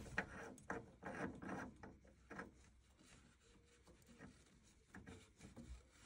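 Faint rubbing and scraping of a new flow turbine cartridge being screwed by hand into a combi boiler's brass flow-sensor housing, mostly in the first couple of seconds, then near silence.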